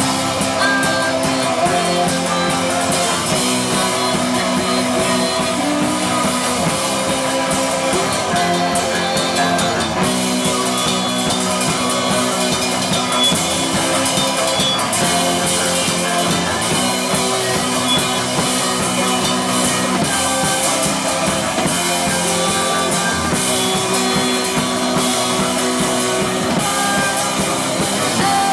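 Rock band playing live, with a full drum kit and guitars.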